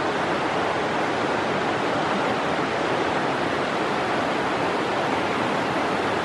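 Steady rush of a fast-flowing mountain creek tumbling over rocks and riffles, a continuous even roar of water.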